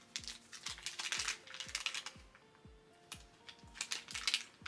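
A thin plastic sachet crinkling and crackling in bursts as it is torn open and handled, over background music with a steady beat.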